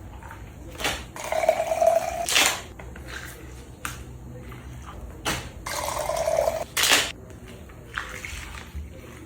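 Liquid poured into a container twice, each pour lasting about a second and a half. Short clicks and knocks come between the pours.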